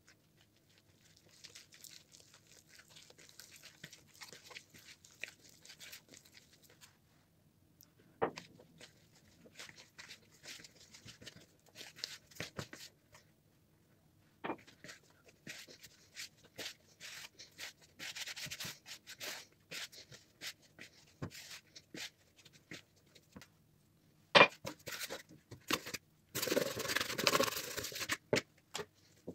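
Hands working flour and liquid into bread dough in a plastic bowl: dry rubbing and squishing in bursts, with a few sharp knocks against the bowl and a louder stretch of scraping near the end.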